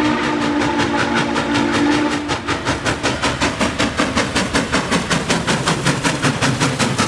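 Norfolk and Western 611, a Class J 4-8-4 steam locomotive, passing close by: its steam whistle sounds a held chord that ends about two seconds in, then the engine's exhaust beats in a rapid, even chuff as it runs past.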